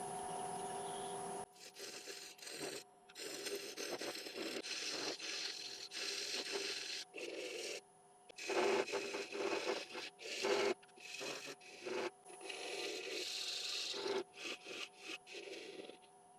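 Wood lathe running at about 500 RPM with a steady hum while a tool works the base of the spinning Irish yew bowl in short, repeated scraping passes, starting about a second and a half in.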